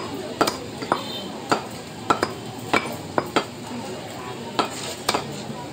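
Meat cleaver chopping beef on a wooden chopping block: sharp chops about two a second, with a pause of about a second a little past the middle.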